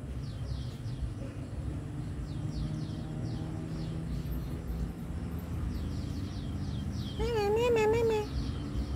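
A kitten gives one loud, wavering mew lasting about a second, starting about seven seconds in. Faint short bird chirps repeat in the background over a steady low rumble.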